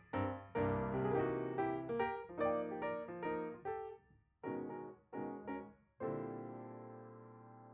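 Background piano music: a run of notes, a pause, two short chords, then a final chord held and slowly fading out.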